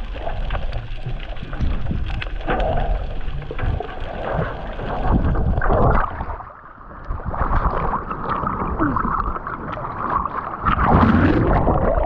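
Water rushing, bubbling and crackling against a GoPro in its underwater housing as it is carried up from the reef bottom. It breaks the surface about halfway through with splashing, then water sloshes over the housing at the waterline.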